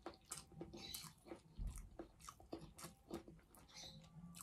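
Faint wet chewing close to the microphone: a string of quick mouth clicks and smacks as food is chewed.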